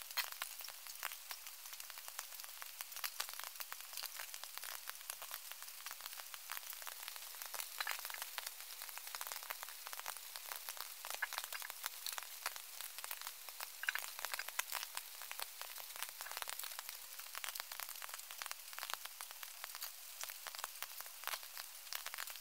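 Steady patter of raindrops on foliage: a dense, even crackle of small ticks with no rhythm.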